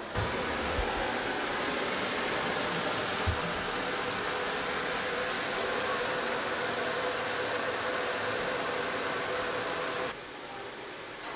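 Water running steadily into a plastic IBC tote, a constant rushing hiss with a faint hum under it, cutting off about a second before the end.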